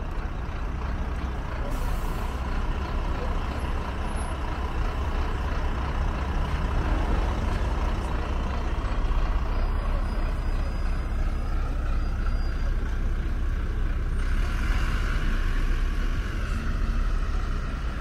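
Road traffic with a bus close by: a steady low engine rumble, with a brief hiss about fifteen seconds in.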